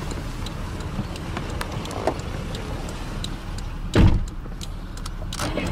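1996 Toyota Crown S150 driver's door pulled shut from inside with one solid thump about four seconds in, after a couple of lighter clicks. A low steady rumble of the idling engine runs underneath.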